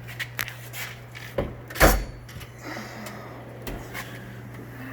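Steel Snap-on toolbox drawers being closed and opened: scattered clicks and rattles, with one loud clunk about two seconds in.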